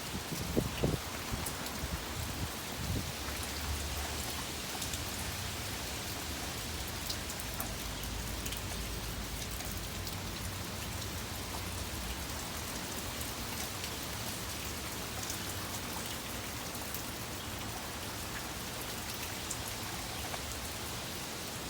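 Steady rain pattering, with gusty wind rumbling on the microphone. The rumble is strongest over roughly the first half. A few knocks come in the first second.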